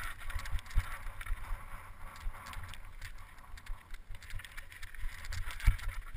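Mountain bike riding down a rocky, gravelly trail: tyres crunching over loose stones with rattling clicks from the bike. A few low thumps come over bumps, one about a second in and another near the end.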